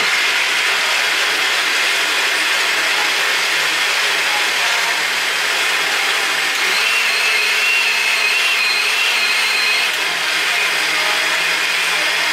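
Electric blender running steadily while blending a protein shake, with a faint wavering whine rising above the motor noise for a few seconds midway.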